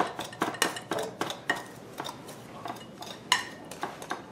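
Metal pastry blender clinking and scraping against a glass mixing bowl in irregular strokes, cutting butter into a dry crumb mixture; one of the sharpest clinks comes about three seconds in.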